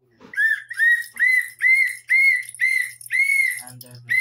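Small plastic toy whistle blown in short, loud toots, about two a second, each one rising and falling slightly in pitch, with one longer toot near the end.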